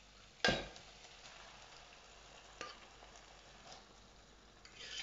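Onion-tomato masala frying gently in oil in a pan, a steady soft sizzle, with one sharp knock about half a second in and a couple of lighter knocks later. Near the end the sizzle flares briefly as cooked toor dal is spooned into the pan.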